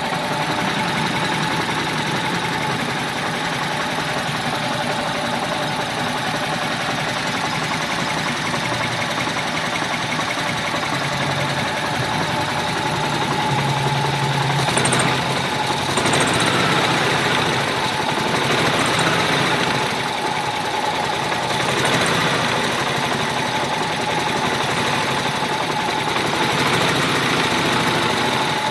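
1995 G20 van engine idling roughly, a steady running sound with a few brief swells in level midway through.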